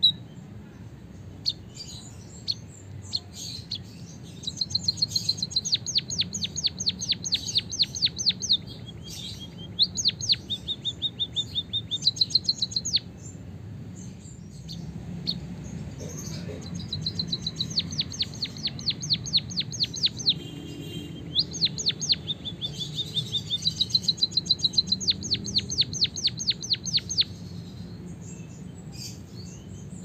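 White-headed munia singing a long, rolling canary-style song. It gives rapid trills of evenly repeated high notes in two long runs, with a break of a few seconds between them.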